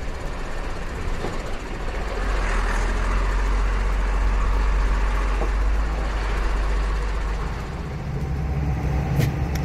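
IVECO 90-16 truck's engine running with road and cab rumble while driving over a rough stony track, heard from inside the cab. Near the end the engine note shifts higher.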